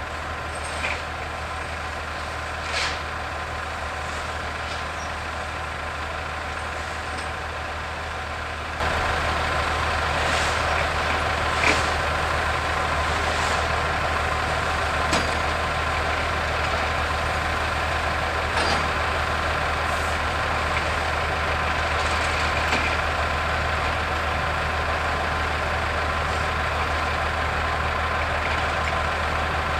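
Heavy diesel equipment, a wheel loader and crane at a freight-car scrapping site, running steadily with a low drone and a few steady whining tones, punctuated by several short sharp clanks. The sound becomes louder and fuller about nine seconds in.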